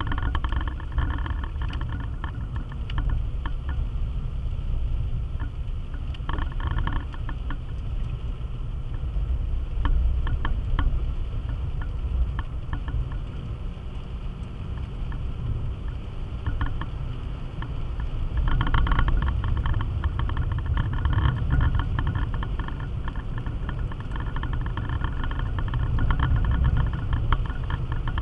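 Car driving on a wet road, heard from inside the cabin: a steady low rumble of engine and tyres, with spells of crackly hiss from the wet road, loudest from about two-thirds of the way through.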